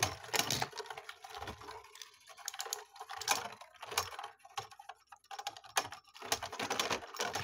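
Two plastic Beyblade spinning tops battling in a plastic stadium, with sharp, irregular clacks as they hit each other.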